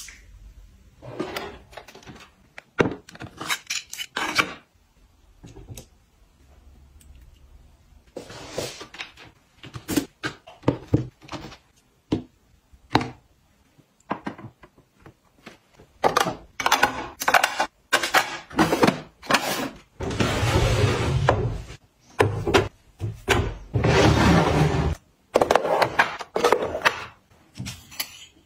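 A run of close handling sounds of hard household items: many sharp clicks, taps and knocks as plastic and hard pieces are set down, fitted and moved, with two longer noisy stretches of about two seconds each about two-thirds of the way through.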